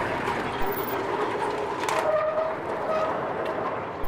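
Large sliding warehouse gate pushed open by hand, rolling along its track with a steady rumbling scrape and two short squeals near the middle.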